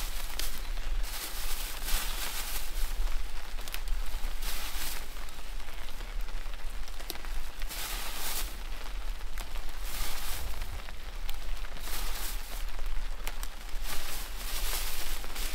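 Heavy rain falling, a steady hiss that swells louder every second or two.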